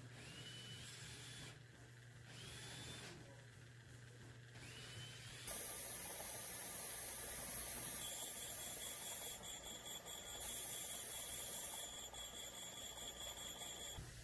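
Valve refacing machine grinding the face of an engine valve: a steady grinding hiss with thin high-pitched ringing tones, starting abruptly about five and a half seconds in.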